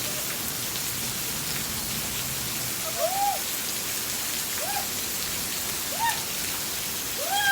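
Steady rain falling in an even hiss. Four short pitched sounds, each rising then falling, come at intervals during the second half.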